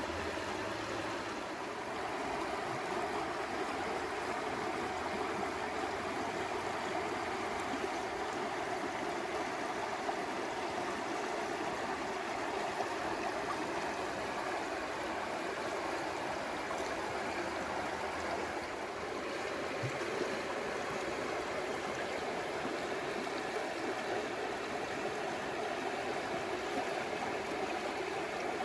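A stream flowing, a steady rush of running water.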